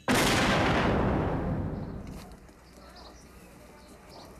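A single sudden loud handgun shot, its echo dying away over about two seconds, followed by a few faint high chirps.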